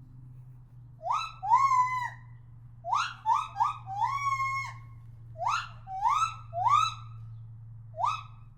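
Monkey calling: a series of about ten short, whistle-like hoots that each slide up and then hold, in groups of two or three. A steady low hum runs underneath.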